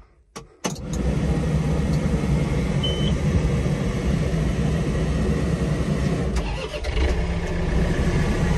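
A John Deere 4052R tractor's three-cylinder diesel engine is started: it catches within the first second, then runs steadily.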